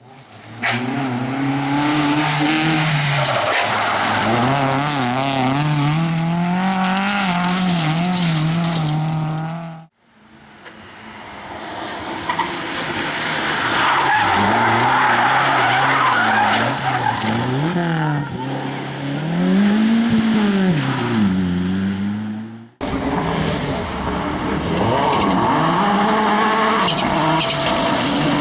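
Race car engines revving hard and tyres squealing across three separate clips, with cuts about ten seconds in and near the end. The engine pitch swings rapidly up and down with the throttle.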